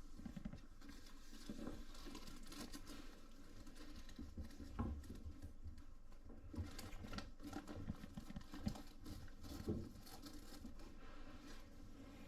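Irregular light pattering with scattered soft knocks and rustles, a few louder taps spread through.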